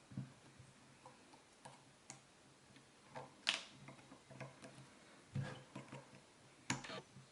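Irregular small metal clicks and taps of tools on a Sargent six-pin lock core as its C-clip is worked off, the sharpest click about three and a half seconds in.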